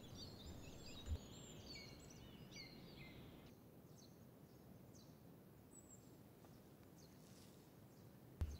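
Near silence, with faint bird chirps for the first three seconds or so.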